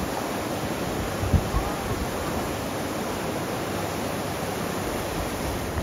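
Mara River water rushing and churning steadily, with one brief knock about a second and a half in.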